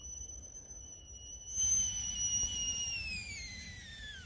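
Whistling kettle at the boil over a campfire: a steady high whistle that grows louder with a rush of steam about a second and a half in, then slides down in pitch as the kettle is lifted off the heat.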